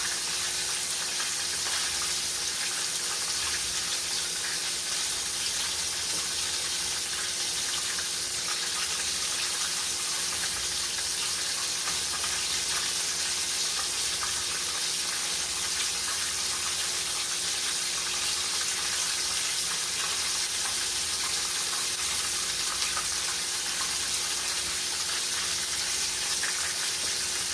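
Chicken frying in a pan, a steady sizzle that holds without a break.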